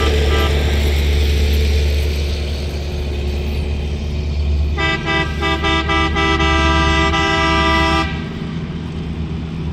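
Horn of a Norfolk Southern maintenance-of-way track machine sounded for the grade crossing. A brief toot ends just as the sound opens. About five seconds in come two quick toots, then a steady blast of about three seconds that cuts off sharply. Under it the machine's engine runs with a steady low hum.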